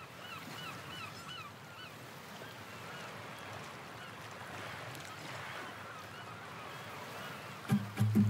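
Soft rustling of cardboard and paper packaging being handled, with faint short chirps repeating in the background. Loud music with low steady notes and sharp clicks comes in near the end.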